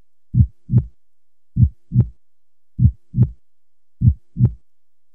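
Slow heartbeat sound effect: low paired lub-dub thumps, four pairs about 1.2 seconds apart.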